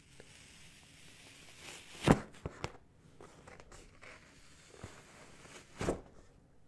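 Apple iMac's paper protective wrap being peeled and pulled off. It rustles softly, with short crinkles about two seconds in, a smaller one shortly after, and another near the end.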